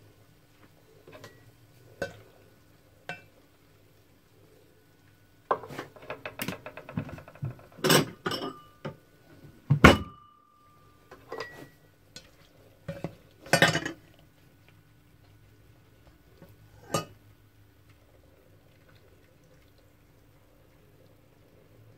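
Dishes and cooking utensils being handled: a quick rattling run of clicks, then a series of knocks and clinks. The loudest knock comes about ten seconds in, followed by a brief ringing tone.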